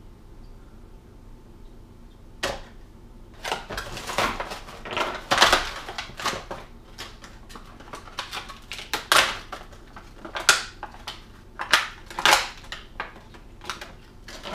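Clear plastic bag crinkling and crackling in the hands as it is worked open, in irregular bursts starting about two seconds in.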